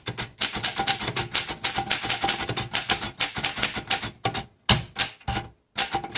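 Keys of a 1938 Royal Junior portable manual typewriter typed in a quick, steady run of sharp clacks, with two brief pauses near the end.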